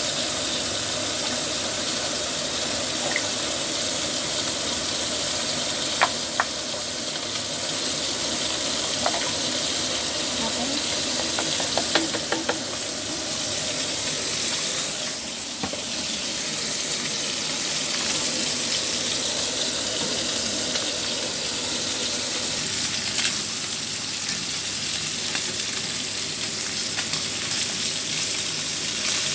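Tofu frying in hot oil in a pan, with a steady sizzle. A few sharp clicks break in now and then.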